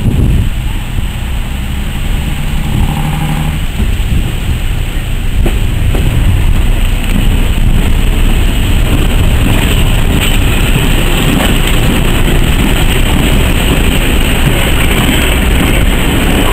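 Class 101 first-generation diesel multiple unit running into the platform. The rumble of its diesel engines and wheels on the rails grows louder about six seconds in as it draws alongside, then stays steady as the carriages go by.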